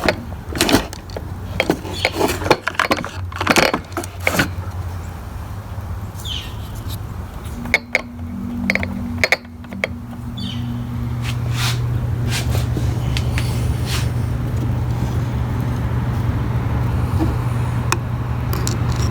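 Ryobi 705r 31cc two-stroke trimmer engine running, with the drive cable removed. The first few seconds hold a run of sharp clicks and knocks, and from about ten seconds in the engine runs steadily and louder. The owner calls it a marble-like rattle, and the trimmer head will not spin.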